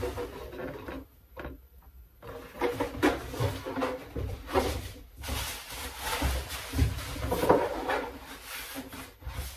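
Handling noises from a large RC model aircraft wing panel being lifted, turned over and laid down on a padded table: irregular rubbing, rustling and light knocks, with the loudest bump near the end as the wing is set down.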